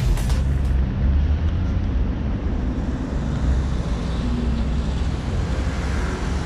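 Steady low rumble of outdoor city background noise, with no distinct single event.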